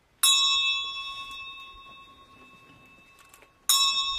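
A small, high-pitched bell struck twice, about three and a half seconds apart. Each strike rings out and fades slowly.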